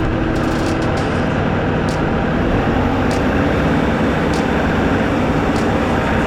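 Tractor diesel engine running steadily, loud and close.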